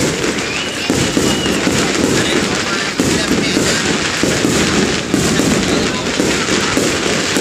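Fireworks display: a dense, unbroken barrage of bangs and crackling, with a crowd of spectators' voices mixed in.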